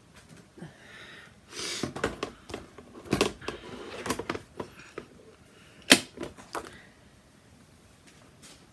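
Cardstock paper handled against a plastic ring binder: a brief rustle and swish of the sheet, then a run of light clicks and knocks, with one sharp click about six seconds in.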